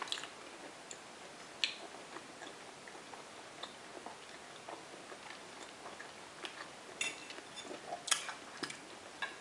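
Quiet eating sounds: a fork tapping and scraping on a plate in scattered small clicks, a few louder ones near the end, with soft chewing.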